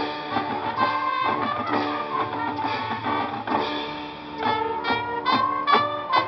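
High school marching band playing: brass and wind instruments holding sustained chords, then a run of short accented hits in the last two seconds.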